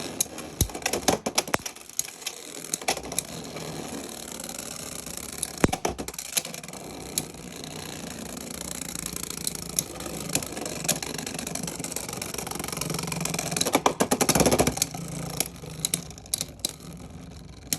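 Beyblade X tops spinning in a plastic stadium with a steady whir, their hits giving sharp plastic clacks. A dense burst of rapid clattering comes around two-thirds of the way in, then scattered clacks as the round winds down.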